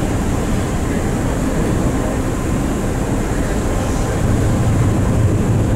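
Ferry's engines running as it manoeuvres at its berth, a steady low rumble that grows a little louder about four seconds in.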